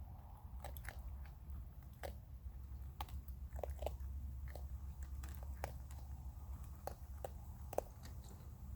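Raccoons chewing hard dry food, with irregular crisp crunches several times a second over a steady low hum.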